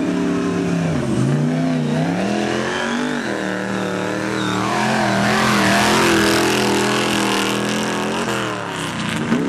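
Mega mud truck's engine revving hard, its pitch dipping and rising with the throttle over the first few seconds. It then holds at high revs for several seconds, loudest about midway, and dips and climbs again near the end.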